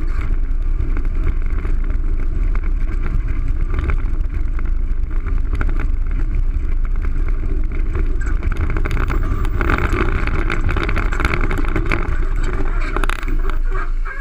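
Longboard wheels rolling fast over asphalt, heard from a camera mounted on the board: a loud, steady rumble with hiss. From about ten seconds in a brighter, harsher noise joins as the rider brakes, and the board comes to a stop near the end.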